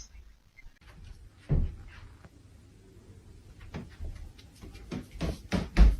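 Irregular knocks and thumps: one about a second and a half in, then several closer together near the end.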